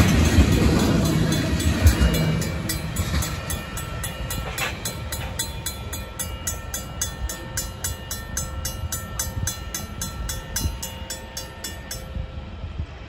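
Freight train tank cars rumbling and clacking past a grade crossing, fading as the train pulls away. A Safetran mechanical crossing bell rings with rapid, even strokes and falls silent near the end as the signals shut off.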